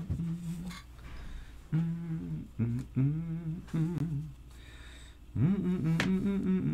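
A person humming a tune in short phrases, with held notes and small slides in pitch. The last phrase, starting a little over five seconds in, is the loudest. A light click sounds near the end.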